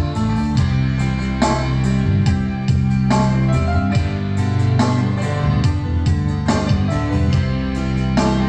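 Instrumental music led by a plucked guitar over sustained bass notes, with no singing.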